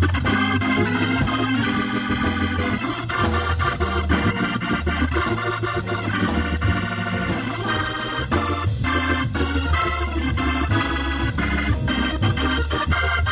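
Hammond organ playing jazz, with quick right-hand lines over a low bass line. A drum kit keeps time on the cymbals behind it.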